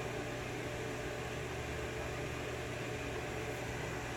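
Room tone: a steady low hum over an even hiss, with no other sound.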